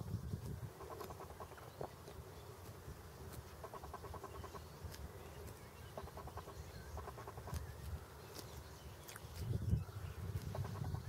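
Greylag goose grazing, tearing grass with its bill in short runs of rapid snips that come several times. A low rumble swells loudest about ten seconds in.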